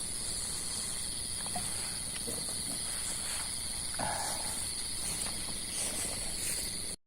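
Chorus of night insects, crickets trilling steadily with a fast pulsing high trill and a second, higher whine. About four seconds in there is a short rustle, and the sound cuts out briefly near the end.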